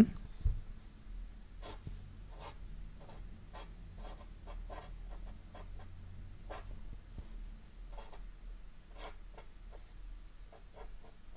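Marker pen writing by hand, a run of short irregular scratching strokes with brief pauses between them as an equation is written out, over a faint steady low hum.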